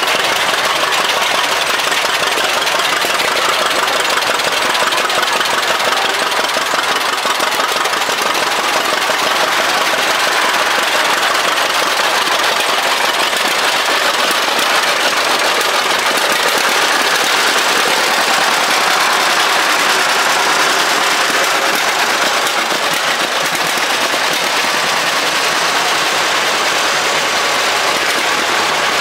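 Antique farm tractor engines running at low speed as the tractors drive slowly past one after another, among them a two-cylinder John Deere and then a Farmall. The sound is steady and unbroken, with no sudden events.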